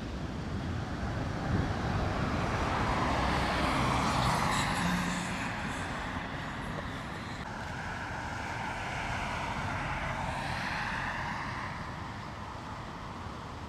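Vehicles passing one after another: a rise and fall of engine and tyre noise about two seconds in, and a second, quieter pass a few seconds later.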